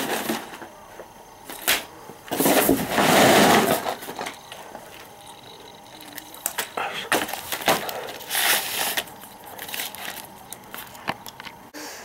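Roll corrugated cardboard being wrapped around a coiled hose and fastened with brown packing tape: crinkling and rustling cardboard, sharp crackles, and tape being pulled and torn, the longest and loudest rip about two to four seconds in, with shorter ones later.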